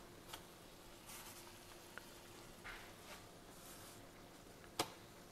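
Quiet stovetop handling sounds: soft rustles and light ticks as a tortilla is handled and laid on the stove, over a faint steady hum, with one sharper knock a little before the end.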